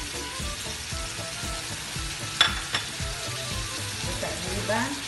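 Meat, onion and tomatoes frying and sizzling in a frying pan while a wooden spoon stirs them, with two sharp knocks of the spoon against the pan about two and a half seconds in.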